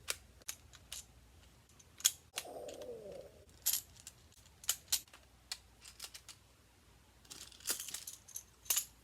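Magformers plastic magnetic tiles clicking as they are snapped together and handled, a string of separate sharp clicks, with a denser clattering rattle of tiles near the end. A short low pitched sound, like a brief hum, comes about two and a half seconds in.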